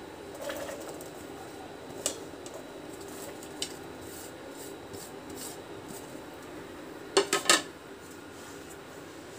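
Soaked tapioca pearls scraped by hand off a ceramic plate into a stainless steel bowl, with soft rustling and a couple of single clinks. Near the end comes a quick run of three or four loud knocks of the plate against the steel bowl.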